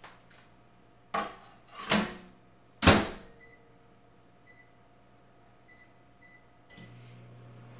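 Over-the-range microwave oven being loaded and started to defrost. The plate knocks as it goes in and the door shuts with a loud clunk about three seconds in. Four keypad beeps follow as the defrost setting is entered, then the oven starts running with a steady low hum near the end.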